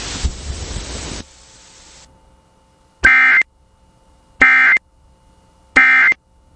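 Emergency Alert System end-of-message data tones: three short, identical screeching bursts about a second and a half apart, after about a second of fading radio hiss.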